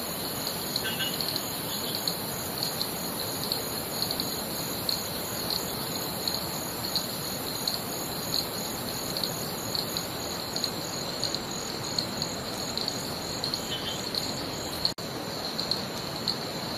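Tropical forest insects calling: a repeated high chirp about once or twice a second over a steady high-pitched buzz, all above a continuous rushing hiss. The sound briefly cuts out near the end.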